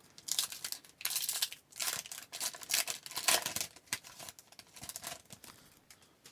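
Plastic wrapper of a hockey card pack crinkling and tearing as it is opened, in irregular rustling bursts for about five seconds.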